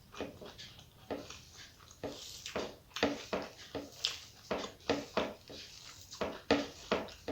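A person chewing food close to the microphone: wet smacking chews, about two to three a second.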